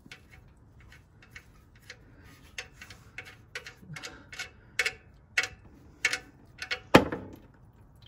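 Oil drain plug being spun out of a car's oil pan by hand, with a run of small sharp ticks of dripping oil and the threads, growing louder and more frequent. Then comes one louder clink about seven seconds in, as the plug comes free and the oil starts to pour into the drain pan.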